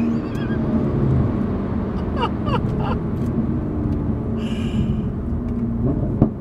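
Toyota A90 Supra's B58 turbocharged straight-six, fitted with a Pure800 turbo, heard from inside the cabin running steadily just after a hard roll-on pull, with tyre and road noise under it. A short sharp tap near the end.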